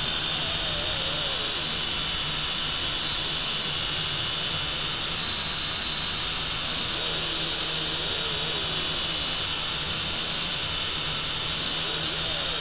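Syma X5C quadcopter's small motors and propellers running steadily in flight, heard from on board as an even hiss over a low hum.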